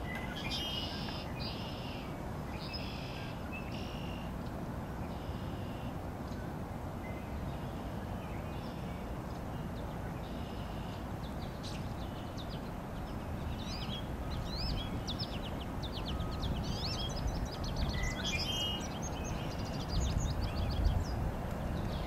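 Small songbirds calling over a steady low outdoor rumble. A short high call repeats every second or so in the first half, then quick twittering phrases take over, and the rumble swells a little near the end.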